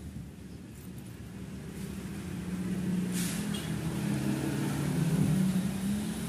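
Engine drone of a passing road vehicle, growing louder over the middle few seconds, with a short hiss about three seconds in.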